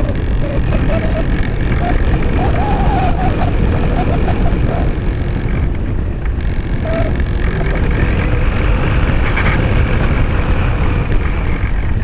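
Loud, steady rush of airflow buffeting the microphone of a camera mounted on an Art-Tech Diamond 2500 RC glider in flight, with a faint wavering whine in the first few seconds.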